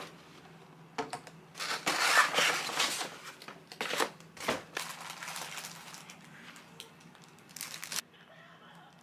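Paper takeout bag and food wrapping rustling and crinkling in irregular bursts as food is lifted out, loudest about two seconds in. The rustling stops suddenly near the end.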